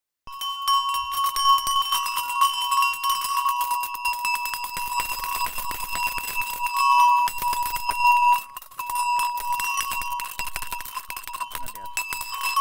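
Metal bells on a herd of goats and sheep ringing and jingling together as the animals move about, starting suddenly just after the start, with a brief quieter dip about two-thirds of the way through.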